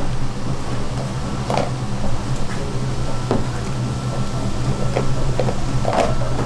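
A steady low mechanical hum with scattered knocks and clicks, several seconds apart, of things being handled.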